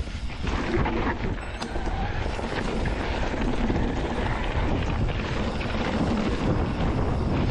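Wind buffeting the microphone, mixed with the rumble and rattle of a mountain bike rolling over a rough trail.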